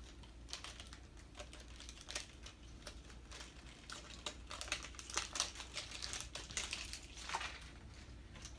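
Toy packaging being handled and opened by hand: irregular crinkles, rustles and small clicks, busier in the second half.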